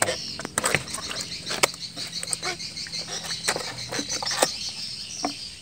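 A freshly caught lawang, a patin-like river catfish, thrashing and slapping against wet wooden boards in a run of sharp, irregular knocks. Behind it, a steady high chirring of night insects.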